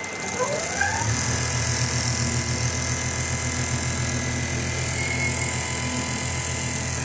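Richpeace 360° rotating-head automatic sewing machine stitching heavy jacket material. It spins up with a rising whine about a second in, runs at a steady, fast needle rhythm, and winds down with a falling whine at the end.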